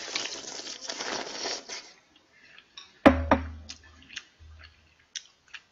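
Slurping clam noodle soup from a bowl for about two seconds. About three seconds in, a sharp clunk as the bowl is set down on the table, followed by a few light clicks of dishes and spoon.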